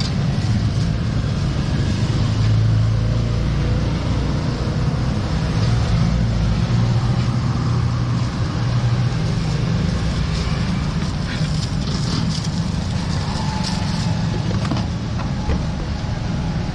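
A motor vehicle engine running steadily with a low hum, amid street traffic noise, with a few faint clicks in the second half.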